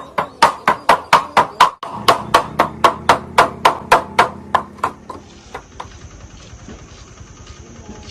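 Rapid, even hammer blows on metal, about four a second, which stop about five seconds in. A quieter steady high whine with faint ticking follows.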